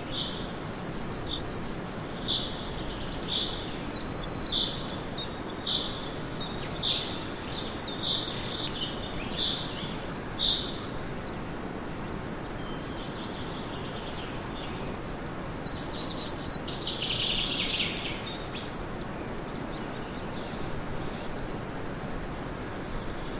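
A bird giving a short high chirp about once a second, repeated about ten times, over a steady outdoor hiss; later comes a louder, denser flurry of chirping calls, then a few fainter ones.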